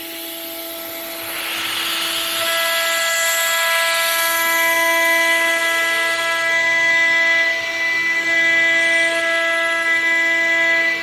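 Tomahawk Pro CNC machine's spindle running with a steady whine while cutting a plate, the cutting noise growing louder about two seconds in.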